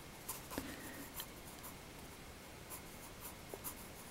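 Graphite pencil scratching faintly on sketchbook paper in short, irregular strokes.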